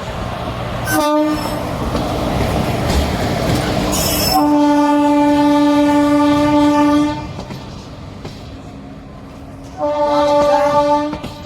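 A WAP-4 electric locomotive's horn, loud, sounding three times as the train departs: a brief toot about a second in, a long blast of about three seconds in the middle, and a shorter blast near the end. Between the blasts runs the rumble and clatter of the moving train.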